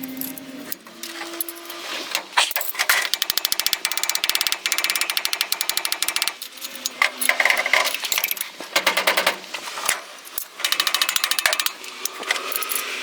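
A power tool run in repeated bursts, giving a fast, even rattle of rapid strikes. The longest burst lasts about four seconds, followed by three shorter ones.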